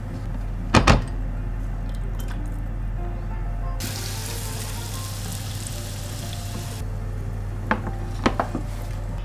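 A metal ladle clinks twice against a pot. Then a hot frying pan of stir-fried turnips sizzles for about three seconds and cuts off abruptly, followed by a few light clinks of tableware, over soft background music.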